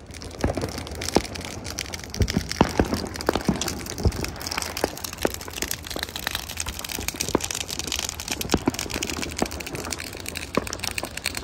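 Dry grass fire burning, with irregular sharp crackles and pops over a steady rushing noise.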